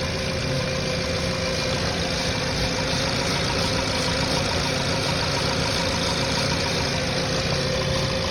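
Volkswagen Jetta engine idling steadily while its coil pack and ignition cables are sprayed with soapy water. The idle stays even with no stumble, the sign that the ignition system is not leaking spark.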